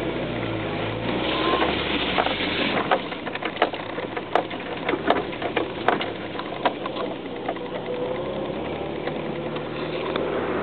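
Rear-wheel-drive pickup truck driving slowly over a rough, muddy dirt road, heard from inside the cab: the engine runs steadily under a string of sharp knocks and rattles between about two and seven seconds in.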